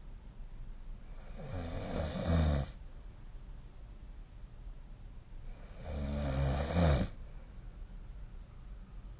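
A sleeping person snoring: two snores about four seconds apart, each growing louder and ending in a short, louder peak before it cuts off.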